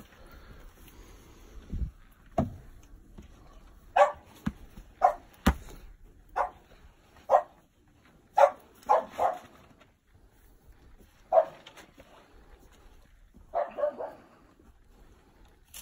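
A dog barking in short, sharp barks, about a dozen of them spread unevenly, some in quick runs of two or three, with a few dull knocks among them.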